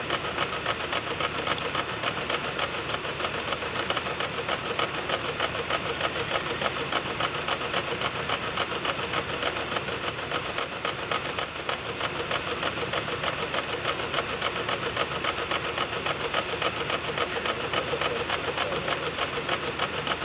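Computer DVD drive clicking at an even pace, about four times a second, over the whir of the spinning disc. The clicking is the drive's read head seeking while it reads program files off a burned DVD.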